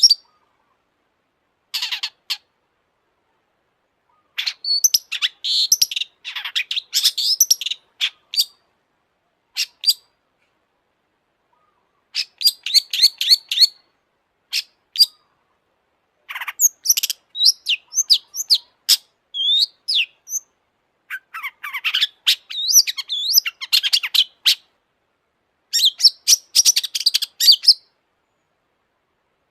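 Long-tailed shrike (cendet) singing in bursts of rapid, high, chattering notes, separated by short silences of one to two seconds.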